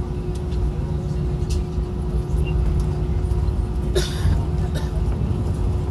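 Airbus A320 cabin noise while taxiing: a steady engine rumble with a constant hum. There is a brief rattle about four seconds in.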